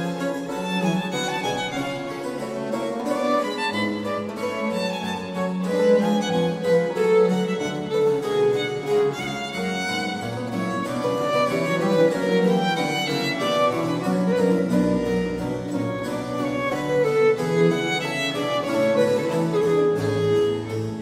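Baroque violin playing a sonata with continuo accompaniment of harpsichord, viola da gamba and archlute.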